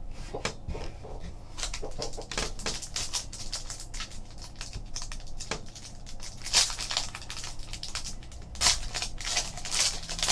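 Foil wrapper of a Press Pass Showcase racing card pack crinkling and crackling as it is handled and torn open, with louder rips about six and a half and nine seconds in.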